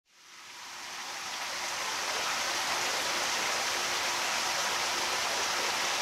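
A steady, even rushing hiss of water-like noise that fades in over the first two seconds and then holds level.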